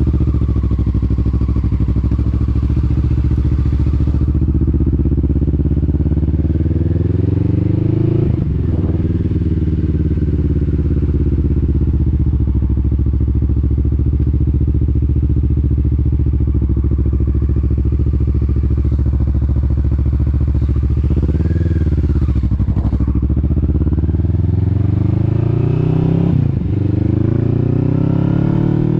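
Motorcycle engine idling, then pulling away and accelerating up the road. Its pitch climbs in each gear and drops back at the gear changes, about 8, 22 and 26 seconds in.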